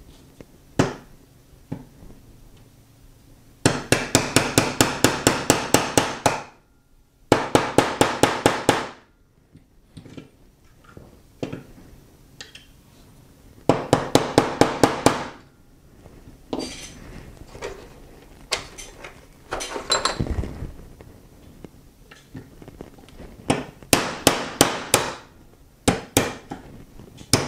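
Small hammer tapping a pin punch to drive the trigger pin out of a Glock 20 Gen4's polymer frame. It comes in three quick runs of light metallic taps, about five a second, then scattered single taps near the end.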